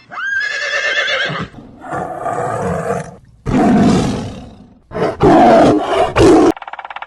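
A run of loud animal calls and roars, cut one after another, each a second or so long, the loudest a cluster about five to six and a half seconds in. Near the end a rapid, even buzzing pulse takes over.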